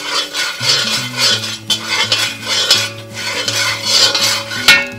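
Slotted spatula stirring and scraping ground spices in ghee around a cast-iron kadai in repeated strokes, with a sharp knock of the spatula on the pan near the end.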